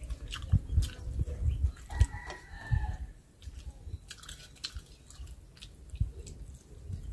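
Close-up eating sounds: chewing and fingers working rice on steel plates, with many soft low thuds and small clicks. A chicken calls briefly in the background about two seconds in.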